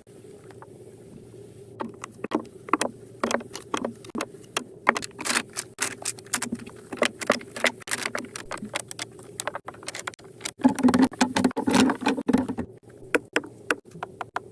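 A rapid, irregular run of sharp clicks and knocks that starts about two seconds in and thickens into a denser crackling burst near the end.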